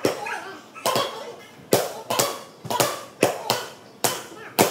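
Gloved punches and kicks smacking Muay Thai pads held by a trainer: a run of about nine sharp pad strikes, coming faster, about two a second, after the first second or so.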